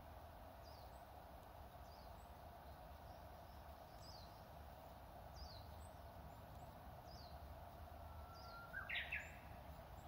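Japanese bush warbler (uguisu) singing its 'hoo-hokekyo' song once near the end: a long held whistle followed by a quick, higher flourish, the loudest sound here. Through the rest, faint high chirps falling in pitch repeat about once a second.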